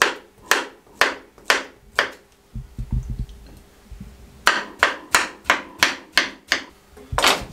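A kitchen knife slicing through soft steamed sweet potato and knocking on a wooden cutting board. Sharp knocks come about two a second, stop for about two seconds, then come in a quicker run, with one last knock near the end.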